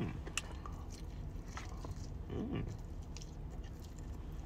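A man chewing and biting into jerk chicken, with small wet clicks of the mouth, and a hummed "mm" of approval twice, at the start and about halfway through.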